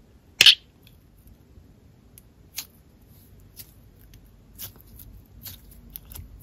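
Slightly rippy slime being worked out of a small plastic cup and stretched by hand: a sharp click about half a second in, then faint sticky clicks and pops about once a second.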